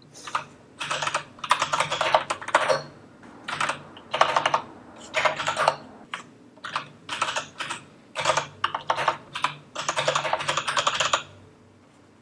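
Typing on a split ergonomic computer keyboard: bursts of rapid keystrokes with short pauses between them. The typing stops about a second before the end.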